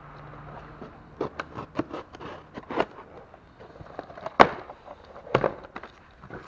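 A cardboard parts box and its packaging being handled and opened with gloved hands: a run of crackles, rustles and sharp clicks, with the strongest knock about four and a half seconds in.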